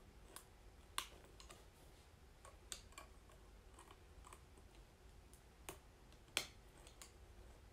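Faint clicks of small plastic LEGO hinge and clip pieces being handled and snapped together, scattered and irregular, with two sharper clicks about a second in and near the end.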